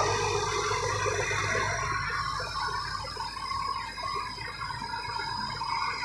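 Heavy diesel engine idling steadily, heard as a noisy rumble with a thin high whine above it.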